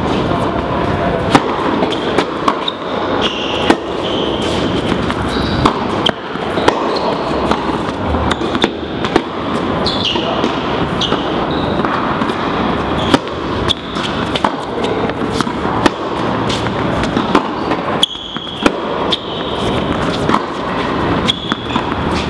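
Tennis balls being bounced and struck on an indoor court, sharp repeated pops and bounces, with short high sneaker squeaks here and there, over steady background noise.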